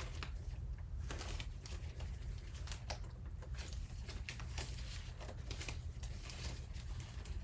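Close-up handling sounds: irregular light crinkles and sharp little clicks, several a second, over a steady low hum.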